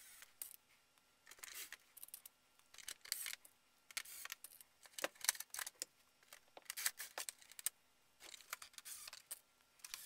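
Plastic body shell of a Traxxas Unlimited Desert Racer RC truck being fitted back onto the chassis: faint, scattered clicks and rustles of plastic being handled.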